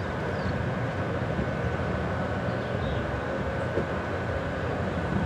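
Steady low rumble and hum of a large container ship's engines and machinery as it passes close by, with a thin steady whine above the rumble. A few faint short high chirps come and go.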